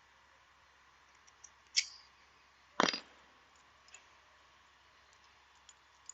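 Two sharp metal clinks about a second apart, with a few faint ticks, as a bearing puller is loosened off a ceiling fan's ball bearing.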